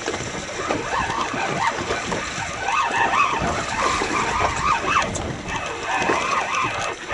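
Water slapping and sloshing against the hull of a small fiberglass boat, with indistinct, wavering sounds in the middle range, like muffled voices, through most of it.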